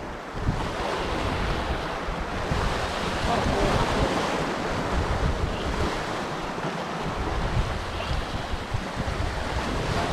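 Sea surf washing against a rocky shore, with wind buffeting the microphone; the wash swells a little about three to five seconds in.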